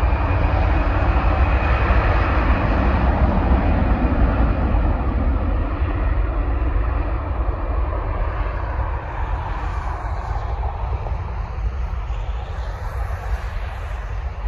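Airbus A320's twin jet engines at takeoff thrust on the takeoff roll: a loud, steady roar with a deep rumble and a high whine that climbs just before and then holds, slowly fading as the aircraft draws away down the runway.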